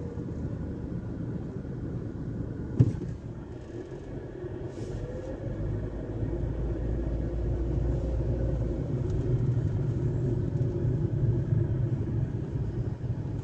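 Low, steady rumble of a car's engine and tyres heard from inside the cabin while driving slowly, getting a little louder about halfway through. A single sharp click sounds about three seconds in.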